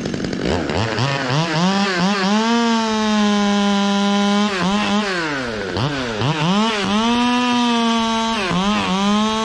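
Chainsaw making a snap cut through a rigged tree limb. It revs up to full throttle about a second in and holds a steady high pitch while cutting, drops off and revs back up around the middle, and dips briefly once more near the end.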